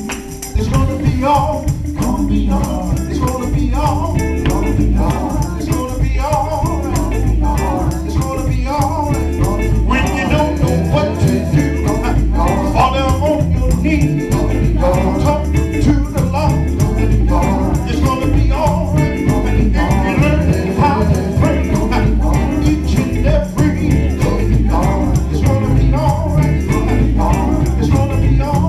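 Live gospel music: male voices singing, led by a singer on a handheld microphone, over a band with heavy bass and a steady drum beat.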